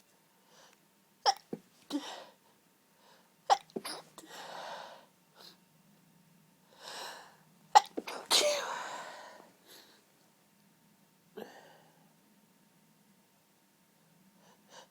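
A woman's allergy sneezes, held in: a series of short, choked sneezes, each a sharp catch, with breathy intakes between them. The loudest and longest is about eight seconds in, a half-stifled sneeze that trails off for over a second.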